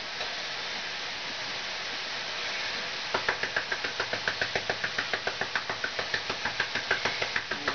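Food sizzling steadily in a frying pan. About three seconds in, a quick run of sharp clicks starts, about five a second, as a utensil works the food in the pan.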